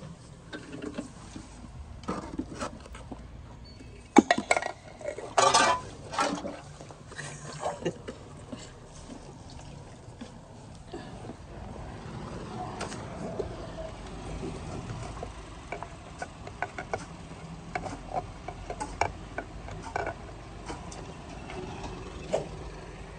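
A metal bucket clanking and muddy sewer water splashing as roots and muck are cleared out of a manhole. There are several loud knocks about four to six seconds in, then lighter knocks now and then.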